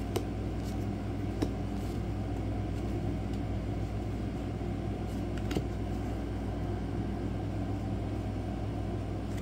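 Steady low background hum, with a few faint ticks from trading cards being handled.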